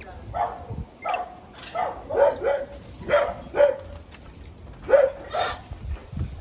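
A dog barking repeatedly, about ten short barks, mostly in quick pairs.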